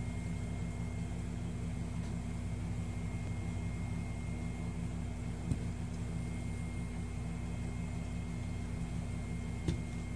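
Steady low machine hum with a thin high-pitched whine over it, unchanging throughout. Two light clicks break through, one about halfway and one near the end.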